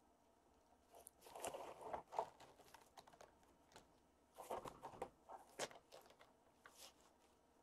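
Faint crinkling, scratching and crunching of kittens clawing and chewing at a corrugated cardboard scratcher and towel, in two short bouts with scattered clicks between.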